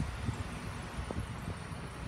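Demolition excavator working with a grab: a steady low engine rumble with a few short, dull knocks.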